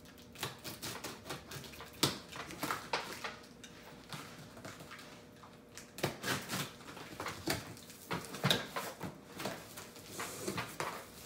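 Box cutter slitting the packing tape and cardboard of a large shipping box, with the cardboard flaps scraping and creaking as they are pulled open: an uneven string of scratches, taps and clicks.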